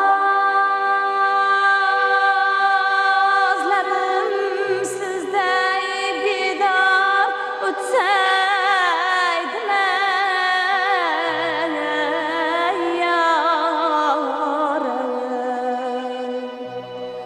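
Uzbek song: a singer holds long, wavering notes and sings ornamented runs over instrumental accompaniment.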